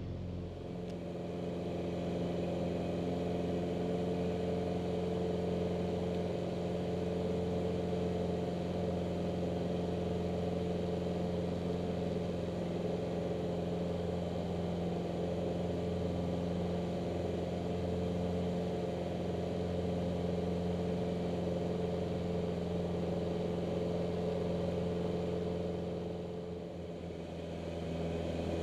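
Van's RV light aircraft's piston engine and propeller running steadily in cruise, heard from inside the cockpit as an even drone. It eases off slightly near the end.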